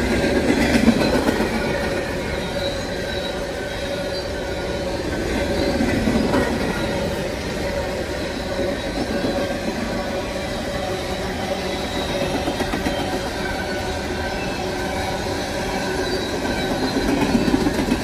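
Empty coal train rolling past at close range: a steady rumble of steel wheels on rail with a thin, continuous wheel squeal. It swells louder about a second in, again around six seconds in, and near the end.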